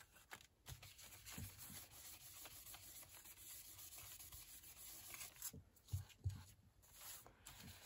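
Faint rubbing of a round blending brush, swirled on an ink pad and swept across embossed cardstock.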